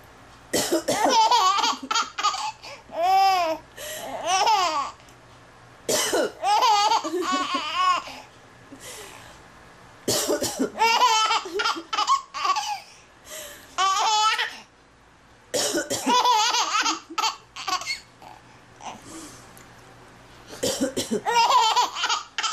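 A woman coughing in short bouts, each answered by a four-month-old baby's high-pitched laughter. This happens about five times, a few seconds apart.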